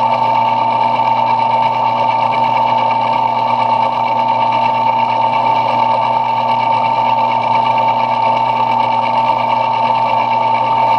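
Belt-driven metal lathe running steadily while turning a brass knob, with a constant high whine.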